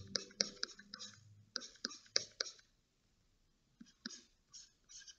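Computer mouse clicking: a run of quick, faint clicks, with a pause of about a second in the middle.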